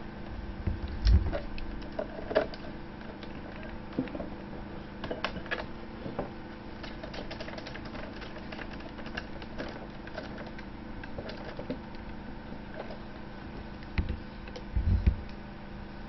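Precision screwdriver driving screws into a laptop's plastic bottom case: scattered light clicks and scrapes of the bit, over a steady low hum. Dull thumps from handling come about a second in and again near the end.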